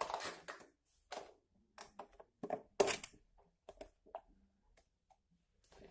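Hard-to-open smartwatch packaging being tugged and pried open by hand: irregular crinkles, clicks and scrapes, loudest about three seconds in.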